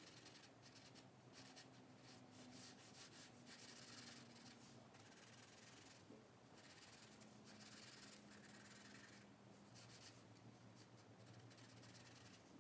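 Faint scratching of a charcoal pencil on sketchbook paper, in short strokes that come and go.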